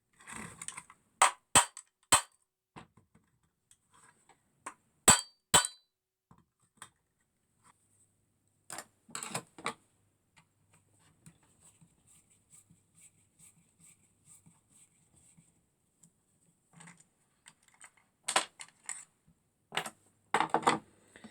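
Scattered sharp clicks and knocks of hand tools and small metal parts being handled while a vacuum cleaner motor is taken apart, with faint rustling between them.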